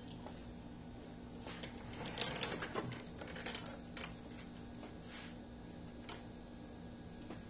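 Small clicks and rattles from objects being handled, with a busier clattering, rustling spell about two to three seconds in and single sharp clicks after it, over a faint steady hum.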